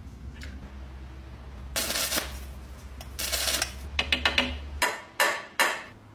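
Metal lock parts being handled: a few short scrapes, then a quick run of clicks and several sharp taps, over a faint low hum that stops about three-quarters of the way through.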